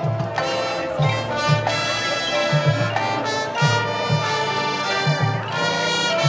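Marching band playing: brass holding sustained chords over a repeating low pulse.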